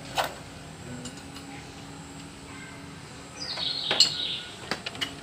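Light metallic clinks and knocks of tools and parts being handled, one sharper click just after the start and a few more near the end. A short high chirp or squeak falls in pitch about three and a half seconds in.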